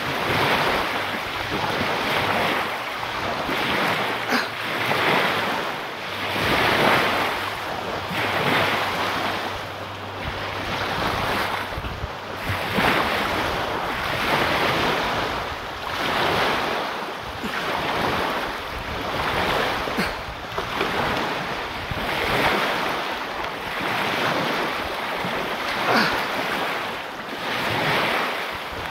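Surf washing onto the beach, with wind on the microphone; the noise swells and fades about every two seconds.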